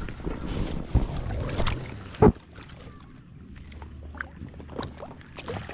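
Lake water sloshing and splashing close to the microphone, with wind buffeting it. A single loud knock comes a little over two seconds in, after which it is quieter with scattered small splashes and clicks.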